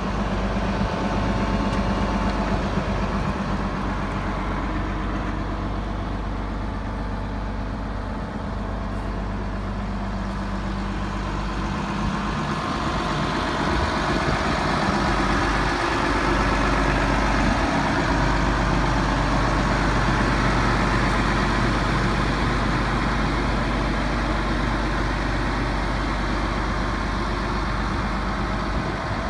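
International 5488 tractor's six-cylinder turbo diesel engine idling steadily, growing a little louder about halfway through.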